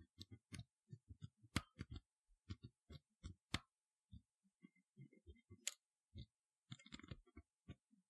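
A pin-tumbler lock cylinder with serrated security pins being single-pin picked with a hook pick and tension wrench: faint, irregular ticking of the pick against the pins, with three sharper clicks about one and a half, three and a half and five and a half seconds in, and a quick flurry of small clicks near the end.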